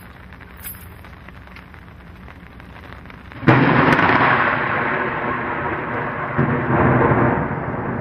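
A thunderclap: a sudden loud crack about three and a half seconds in, then a long rumble that fades slowly and swells again briefly near the end.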